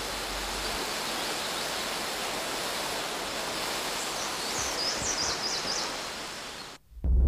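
Steady rush of a small waterfall and stream, with a few high chirps about five seconds in; the sound cuts off suddenly near the end.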